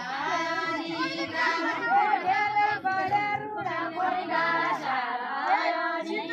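A group of women singing a Deuda folk song together, several voices in a held, chanting melody.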